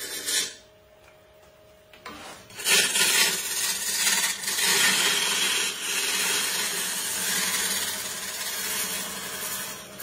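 Turning tool cutting a spinning blank on a wood lathe: a steady, noisy scrape as shavings are peeled off. The cut stops about half a second in, leaving only a faint steady hum, and starts again about two and a half seconds in.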